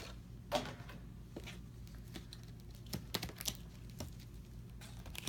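A few scattered light clicks and taps, several close together about three seconds in, with a brief louder sound about half a second in, over a faint steady hum.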